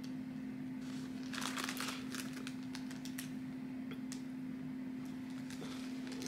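Faint rustling and light ticks of small fabric doll clothes being handled and turned over in the hands, a few louder rustles about one and a half seconds in, over a steady low hum.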